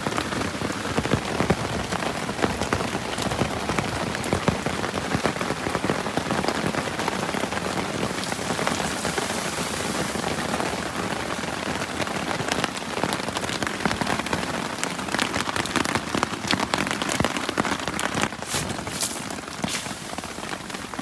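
Heavy rain thrashing down on a DD Hammocks tarp overhead: a dense, steady patter of drops on the taut fabric.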